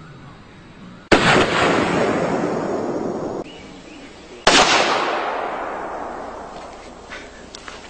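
Two pistol shots from a large semi-automatic handgun, about three and a half seconds apart, each a sharp crack followed by a long echo that fades away over a few seconds.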